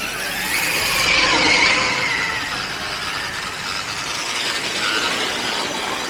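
Electric motor and gears of an RC off-road car whining under throttle, the pitch rising and falling, loudest between about one and two seconds in.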